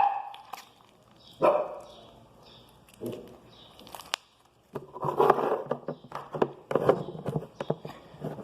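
A dog barking in short bursts, one at the start, again about one and a half and three seconds in, then a quicker run of barks in the second half.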